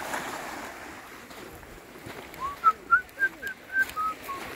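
A bird calling: a run of about eight short, clear whistled notes, roughly three a second, that climb and then fall back in pitch, starting about halfway in. Under it is a soft steady hiss of small surf on the beach.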